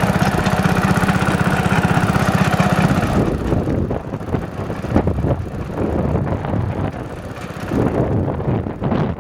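Mini tractor's small engine running with an even firing beat. About three seconds in, the steady note gives way to a quieter, uneven rumble.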